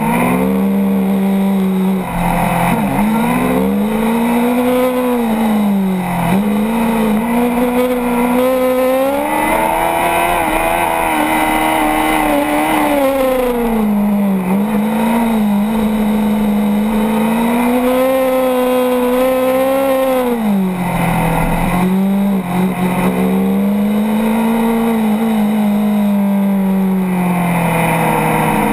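Formula Student race car's engine heard from onboard, revving up under acceleration and dropping back as the car slows, several times over through a run of corners.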